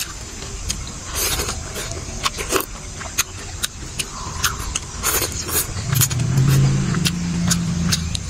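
Metal spoon and chopsticks clicking against a ceramic soup bowl during eating, with chewing. A low droning hum swells about six seconds in and holds for around two seconds, the loudest part.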